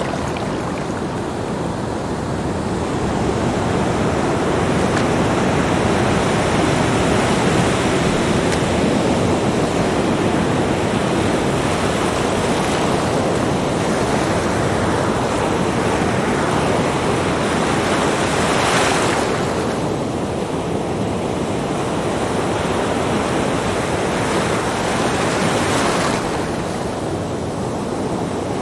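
Small ocean waves breaking and washing up a sandy beach: a steady surf that swells and ebbs, with two sharper rushes of breaking water, one about two-thirds of the way through and one near the end.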